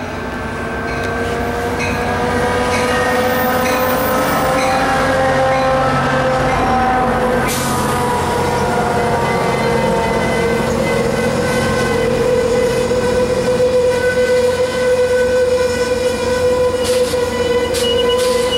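Amtrak California passenger train led by an F59PHI locomotive rolling past on arrival, its bilevel cars giving a steady squeal of several pitches that drifts slowly up and down. The sound grows louder over the first few seconds. Sharp clicks come about 7 seconds in and again near the end.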